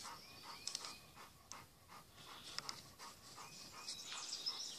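A dog panting, faint and rhythmic.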